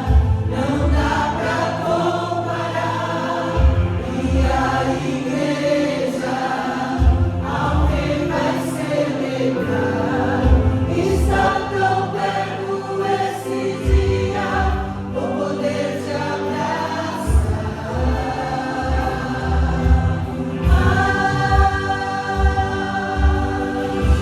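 Gospel worship song performed live: sung vocals over a band, with a steady bass and drum beat.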